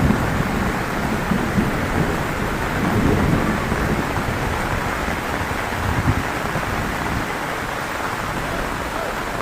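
Heavy rain pouring steadily. A low rumble of thunder is heard in the first few seconds and then dies away.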